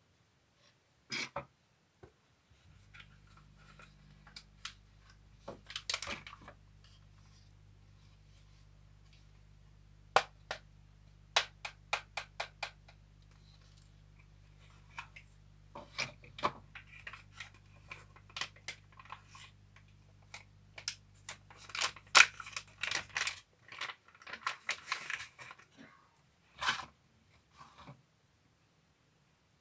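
Packaging being handled during an unboxing: scattered sharp clicks and taps with short bursts of rustling and scraping. A faint low steady hum starts a few seconds in and stops about three-quarters of the way through.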